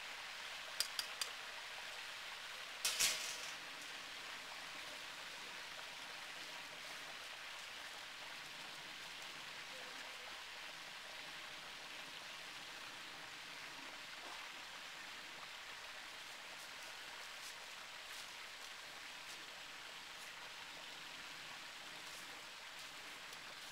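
Hot oil sizzling steadily in a propane turkey fryer pot with a turkey frying in it. Three light metal clinks come about a second in, and a louder metal clatter about three seconds in.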